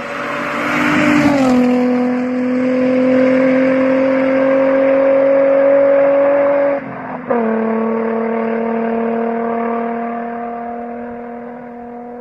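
Nissan 350Z's VQ35 V6 driving past at speed: its exhaust note drops in pitch as it goes by just over a second in, then rises steadily as it accelerates away. About seven seconds in the sound breaks off briefly for an upshift, then the note climbs again from a lower pitch and gradually fades into the distance.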